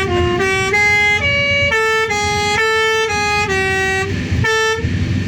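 Bus 'telolet' multi-tone horn playing a tune: about ten held notes stepping up and down in pitch, then a short break and one last note, over the rumble of the bus engine. The horn stops near the end, leaving only engine and road noise.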